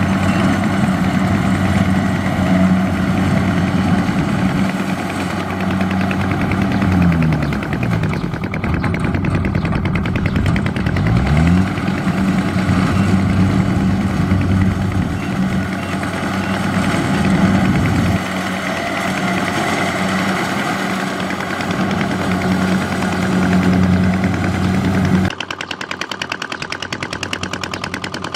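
A farm machine's engine running steadily under the harvesting tractor's work, its pitch dropping and then climbing again about a third of the way in. Near the end the sound changes abruptly to a lighter, rapid, even chatter.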